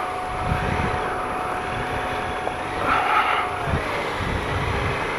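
Triumph Explorer XCa 1215cc motorcycle engine running at low speed as the heavy bike crawls along a rutted, muddy track. A steady whine runs over a low rumble and falls in pitch about three-quarters of the way through.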